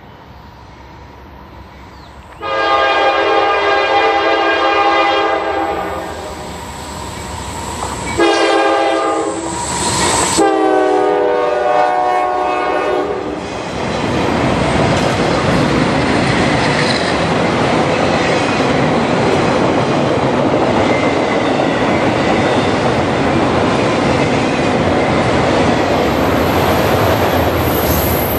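Diesel locomotive air horn on a Norfolk Southern freight: a long blast, a short one, then another long one whose pitch bends down as the locomotive passes. The autorack cars then roll by with a loud, steady rumble and wheel clatter.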